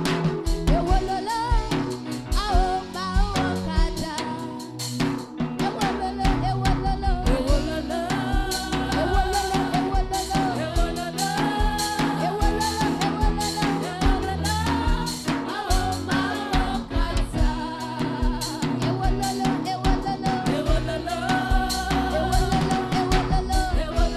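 Live gospel worship music: a drum kit keeps a steady beat under a band and a wavering sung melody.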